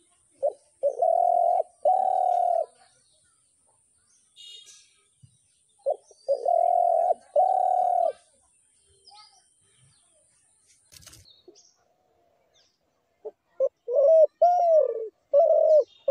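Dove cooing: a short note followed by two long, even coos, given twice, then a quicker run of shorter coos that rise and fall near the end. Faint chirps from small birds sound in the gaps.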